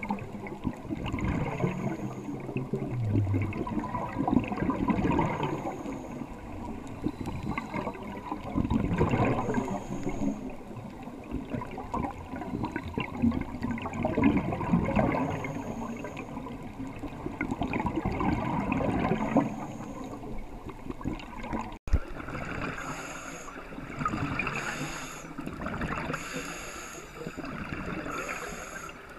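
Scuba diver's regulator breathing recorded underwater: gurgling bubble sounds that swell and fade about every four to five seconds. The sound drops out for an instant about two-thirds through, and the breathing continues after it.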